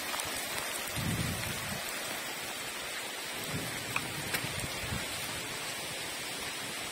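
Heavy rain pouring steadily on grass and a wet, streaming path: a downpour. There are a few low rumbles about a second in and again around four seconds.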